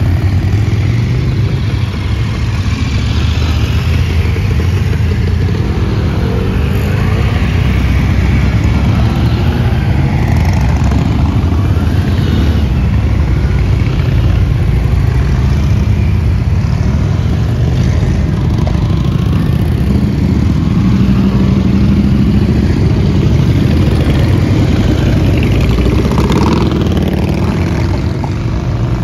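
A procession of many motorcycles riding slowly past, their engines running in one continuous, unbroken mix of low engine sound.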